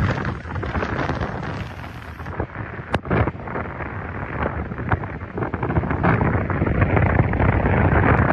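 Hurricane-force wind blasting across the microphone in surging gusts, with a single sharp knock about three seconds in.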